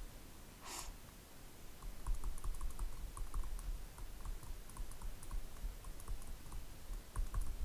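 Soft, irregular clicking and tapping of a stylus on a tablet screen as handwriting is written, over a low hum.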